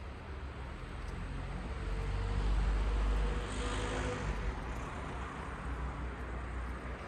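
A vehicle passing on a road: a rumble that builds, is loudest about three seconds in, then fades.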